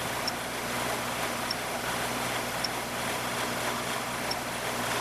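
Shopsmith running steadily in its horizontal boring setup, drilling side suction holes into a UHMW plastic fixture.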